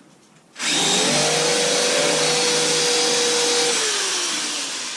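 A power tool's motor switched on about half a second in, running steadily at full speed for about three seconds, then released and winding down, its pitch falling as it slows.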